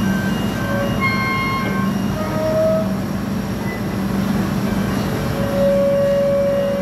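Sany 600-ton crawler crane running under load: a steady heavy diesel engine hum with a noisy mechanical rumble, overlaid by short, irregular metallic squeals at varying pitches, the longest about five seconds in.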